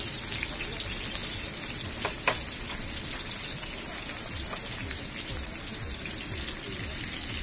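Oil sizzling steadily as chicken pieces fry on a flat iron griddle, with one sharp click a little over two seconds in.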